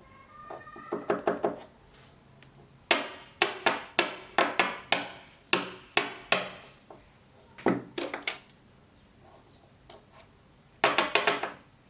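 Small lens parts (glass elements, spacers and the lock ring) clicking and tapping against the lens barrel as the lens is put back together. The taps come in bunches of quick, sharp clicks, with a longer run of about a dozen in the middle.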